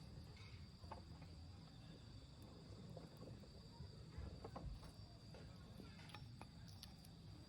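Faint crackling of a wood fire burning in a Solo Stove, with scattered small pops, over a steady high insect trill.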